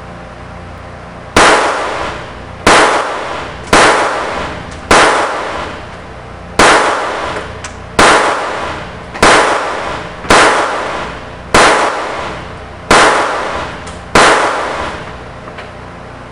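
Stoeger Luger .22LR semi-automatic pistol firing Blazer rounds, eleven single shots at a steady pace of about one every 1.2 seconds, each crack followed by a short echoing tail.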